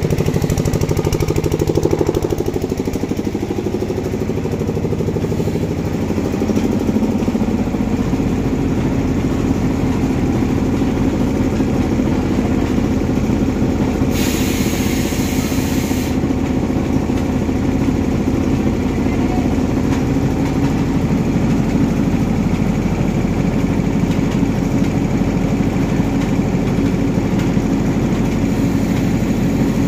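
A motor runs steadily with a low, fast-pulsing drone. About halfway through, compressed air hisses for about two seconds as the pneumatic press is worked.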